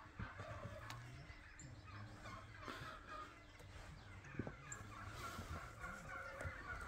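Faint birds calling over and over, with soft hoof steps of a horse walking on dirt.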